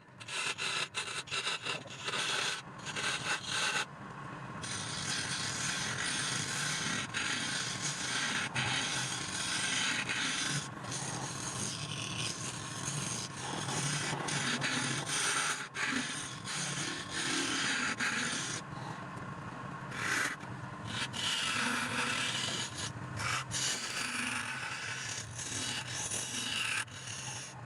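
Woodturning lathe with a hand tool scraping and cutting a spinning wood blank: a continuous scraping hiss with many short breaks as the tool comes off the wood, over a low steady hum.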